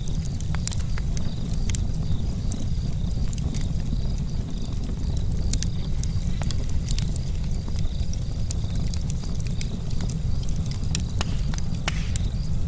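Charcoal campfire crackling, with frequent small sharp pops over a steady low rumble. A faint steady high tone sits underneath throughout.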